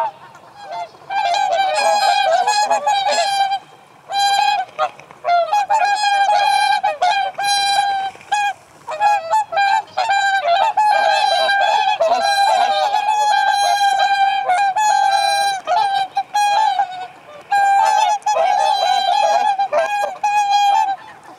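A flock of swans calling: many loud, overlapping honking calls that start about a second in and carry on almost without a break, with a few short lulls.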